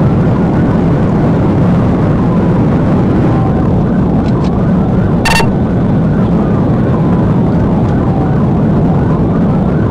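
Police car siren wailing up and down, faint under the loud, steady road and engine noise of the moving patrol car. A short electronic beep about five seconds in.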